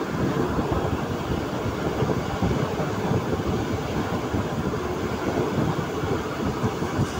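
Passenger train running at speed, heard from an open window at the side of the carriage: a steady rush of wheel-and-rail noise and passing air.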